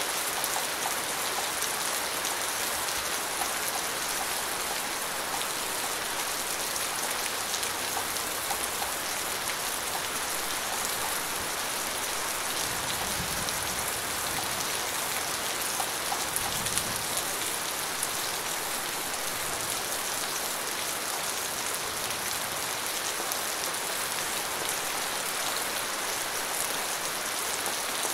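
Rain falling steadily on a surface, an even hiss of drops.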